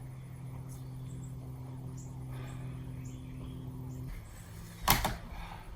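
Power drill running steadily as it drives a screw, then stopping abruptly about four seconds in, where the screw meets the railroad tie and stalls. A single sharp knock follows about a second later.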